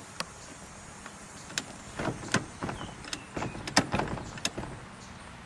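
Clicks and knocks of a 1969 AMC Ambassador SST's individual reclining front seat being released and tilted back by hand, a scattered series of short mechanical clunks.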